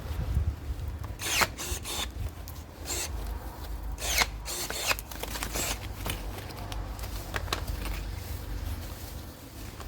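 Tool work on used aluminium air-conditioner refrigerant piping: a steady low hum with several sharp scraping strokes, the strongest about a second and about four seconds in.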